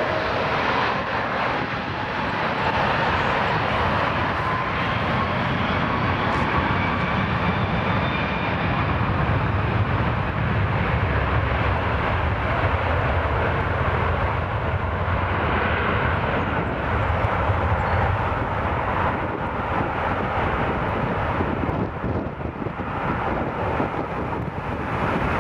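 Airbus A330-300 jet engines (Rolls-Royce Trent 700) powering up for takeoff: a whine rising in pitch over the first several seconds, then a steady deep rumble of jet thrust that eases near the end as the airliner rolls away down the runway.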